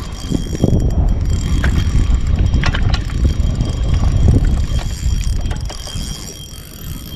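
Wind buffeting the microphone with a heavy low rumble, over the light mechanical clicking whir of a spinning fishing reel being cranked.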